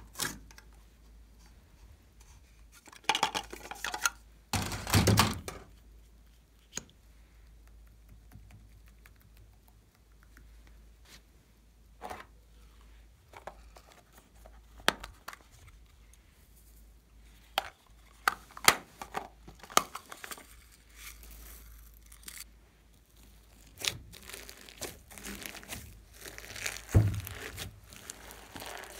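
Hands handling small plastic objects, a tape roll and a plastic makeup palette case being opened, with scattered clicks, knocks and short rustling bursts. Near the end, hands squeeze and stretch glossy slime full of sequins and glitter, making a crinkly, tearing sound with a thump.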